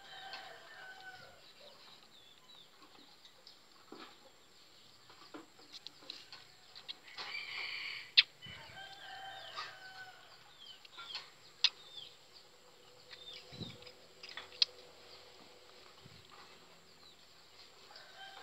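Chickens clucking on and off, with a denser run of calls about halfway through. A few sharp clicks stand out between the calls.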